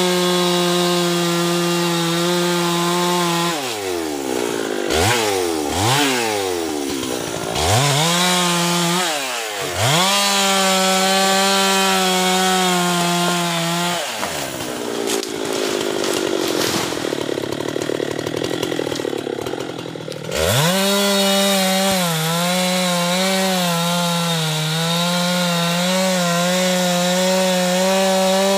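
Husqvarna two-stroke chainsaw running at full throttle, its pitch sagging slightly under load as it cuts teak wood. The throttle is let off and blipped several times early on. For several seconds in the middle it falls back to a low, rough idle, then revs up to full speed again and holds there.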